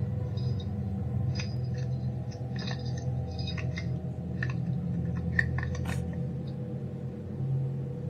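Keys on a keychain clicking and scraping against a doorbell camera in a quick, irregular series of sharp metallic clinks, as someone tries to fit a key into it. A low, steady drone of background music runs underneath.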